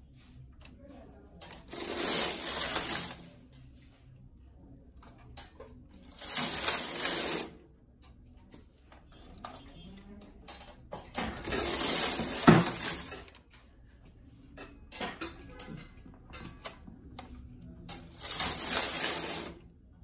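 Domestic knitting machine carriage swept across the metal needle bed four times, each pass a rasping metallic slide of about a second and a half. Small clicks come between the passes as single needles are pushed forward to holding position for short-row shaping.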